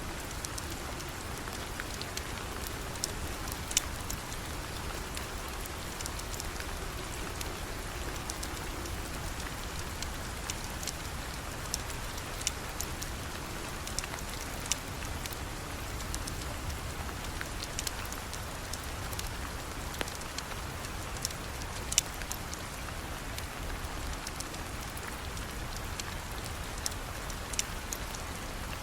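Steady rain falling on a surface, with scattered sharp ticks every second or two.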